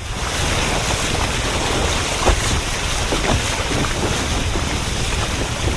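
Wind buffeting an action camera's microphone, with sea water washing around a kayak; there is a brief light knock about two seconds in.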